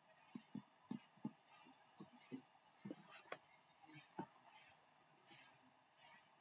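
Near silence: room tone with faint, irregular small knocks and clicks.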